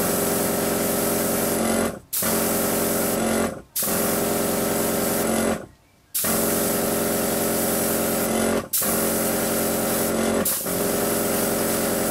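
Badger 200 airbrush spraying, a loud hiss of air with a steady hum from its compressor running underneath. The spraying stops briefly five times and starts again each time.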